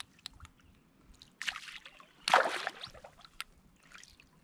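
Hooked bluegill splashing at the water's surface while it is reeled in, in two short bursts with the second louder, then a single sharp click.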